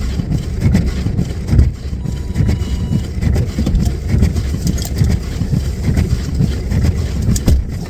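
Pickup truck driving through deep snow: a loud, uneven low rumble of engine and tyres pushing through the snow.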